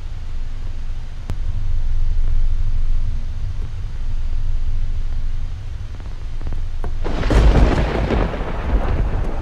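A low steady rumble, then about seven seconds in a sudden loud clap of thunder that rolls on.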